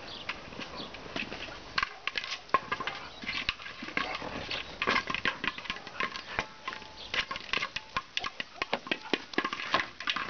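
Footsteps walking on brick paving: a run of sharp clicks and scuffs.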